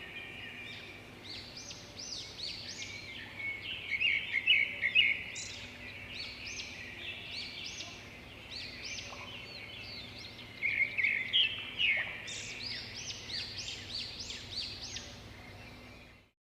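Many small birds chirping together, a dense chorus of short high chirps with louder flurries now and then, cutting off suddenly near the end.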